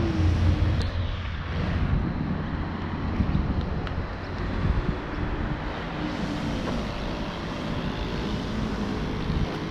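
Road traffic noise: a motor vehicle passing with engine and tyre noise, its low rumble loudest at the start and easing off after about a second, then a steady traffic hum.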